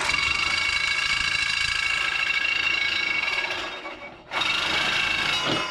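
Power tool with a cut-off wheel cutting through a steel stake: a steady, high, ringing whine that dies away near four seconds in, then starts again for about another second.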